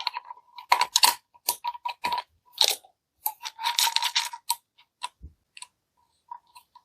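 Small metal and plastic parts of a rivet nut drill adapter kit clicking and clinking as they are handled and fitted together. Irregular clicks, some with a light metallic ring, come thick and fast at first and thin out to a few faint ticks near the end.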